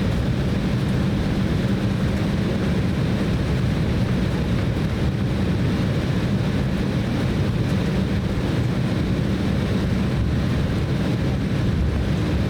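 Steady cabin noise inside an Embraer E190 airliner: a constant low rumble of its GE CF34 turbofan engines and airflow, with a steady low hum and no change in level.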